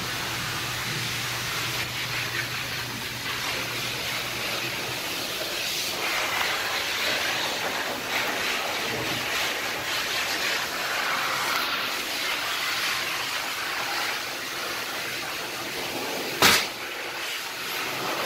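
Steady rushing hiss from a self-service dog-wash station, with a low hum in the first few seconds and one sharp knock near the end.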